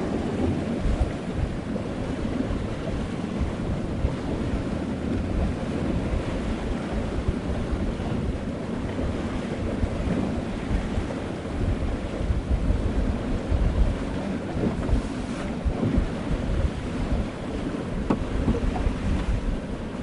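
Wind and sea water rushing around a sailing boat, a steady wash of noise with gusts of wind buffeting the microphone.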